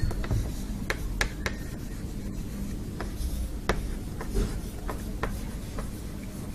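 Chalk writing on a chalkboard: scraping strokes broken by irregular sharp taps as the chalk meets the board to form letters.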